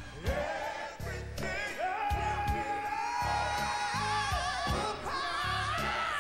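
Live gospel song: a woman belts the lead with backing singers over a band with a steady drum beat. About two seconds in she holds one long high note for over two seconds, with wavering runs before and after it.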